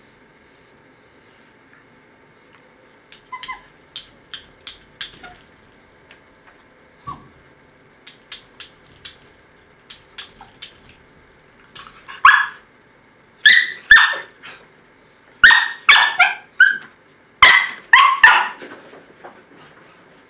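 Jack Russell–beagle cross (jackabee) whining in short high squeaks, with a run of light clicks. About halfway through it breaks into loud, sharp barks in quick groups, some ten barks in all.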